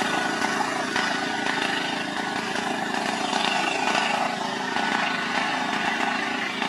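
Small vehicle engines idling steadily: the putter of three-wheeler auto-rickshaws and a car held up on the road.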